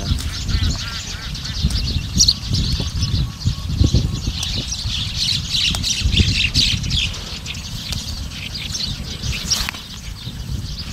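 Outdoor ambience with birds squawking and chattering in quick, irregular calls over a steady low rumble.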